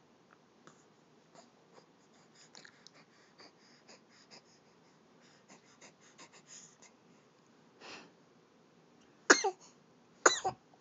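Two sharp sneezes about a second apart near the end, each a loud, sudden blast. They come after a run of faint small clicks and a short breathy sound about eight seconds in.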